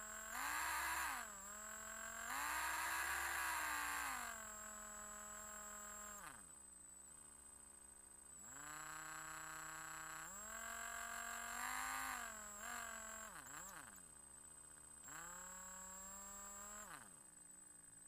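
Electric drill motor whining as it runs, its pitch stepping up and down with the trigger. It winds down and spins back up about six to eight seconds in, dips and recovers again around thirteen seconds, and stops near the end.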